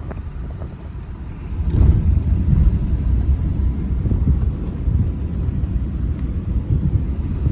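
Pickup truck driving: a low, uneven rumble of engine and road noise that grows louder about a second and a half in.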